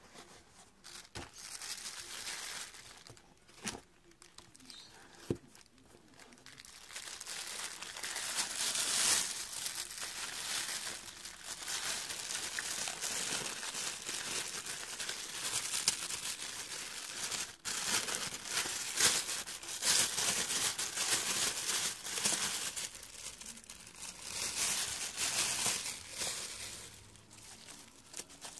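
Thin clear plastic packaging crinkling and rustling as it is handled and pulled off. The first few seconds are light handling, then continuous crackly crinkling for most of the stretch, easing off near the end.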